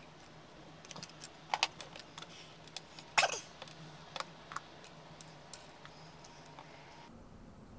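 Small plastic parts of a camera mount clicking and knocking together as they are handled and fitted by hand, in irregular light clicks with one sharper snap about three seconds in.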